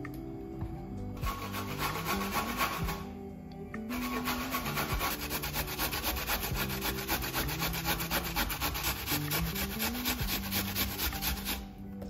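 Sweet potato being grated on a hand grater: rapid rasping strokes, a short run about a second in, a brief pause, then a long steady run until near the end. Soft background music plays underneath.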